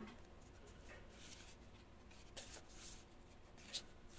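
A few faint, soft swishes of Magic: The Gathering trading cards being slid and flipped by hand.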